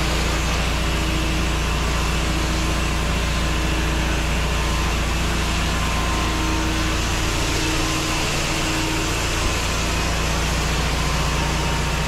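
An 8 gpm pressure washer running steadily as its wand rinses vinyl siding: a low, even engine hum under the constant hiss of the water jet hitting the wall.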